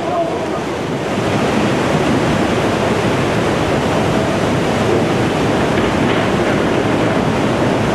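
Steady, loud rush of tsunami floodwater surging through a coastal town.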